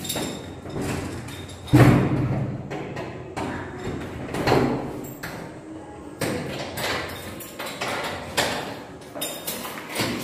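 A series of irregular thumps and knocks, each ringing briefly. The loudest and deepest comes about two seconds in, with others near four and a half, six and eight and a half seconds.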